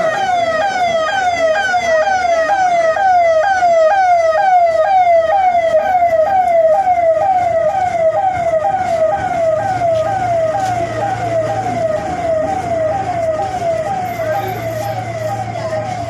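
Emergency-vehicle electronic siren sounding in a steady repeating falling sweep, about two sweeps a second.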